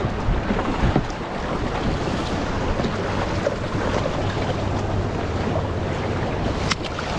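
Seawater washing and lapping against shoreline rocks, with wind rumbling on the microphone. A single sharp click comes near the end.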